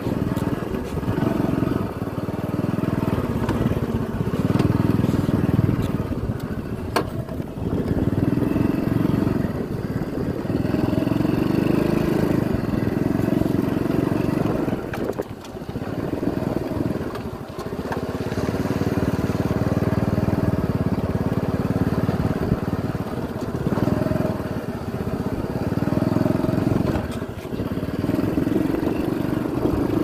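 Small motorcycle engine running along a rough dirt track, its pitch and level rising and easing every few seconds as the throttle opens and closes, dropping off briefly about halfway.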